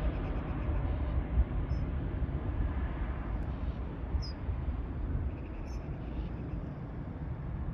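Distant jet noise from a Boeing 737 MAX climbing away after takeoff: a low rumble slowly fading. A few short, high bird chirps come through it.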